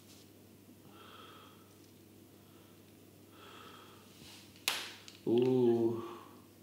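A man breathing softly and slowly, then a sudden sharp breath and a short groan of pain about a second long near the end. This is a patient's reaction to a dry needle going into a muscle trigger point.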